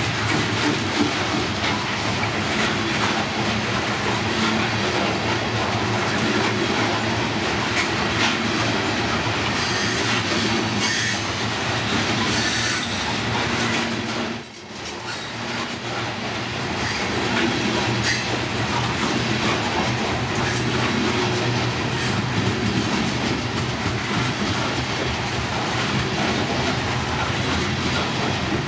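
Train cars rolling past, their wheels clattering over the rail joints with steady clicking, and high wheel squeals about a third of the way through. The noise dips briefly about halfway, then carries on as before.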